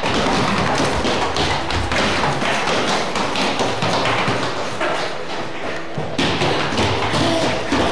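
Dense, fast run of thumps and taps, like many quick impacts one after another, with a little music under it.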